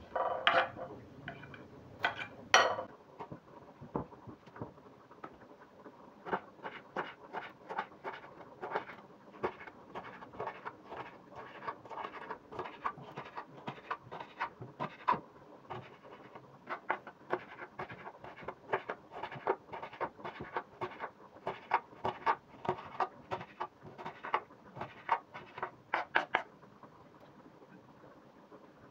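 Kitchen knife chopping red onion and green bell pepper on a wooden cutting board: a long run of quick knife taps on the board, with several louder knocks in the first three seconds. The chopping stops about two seconds before the end.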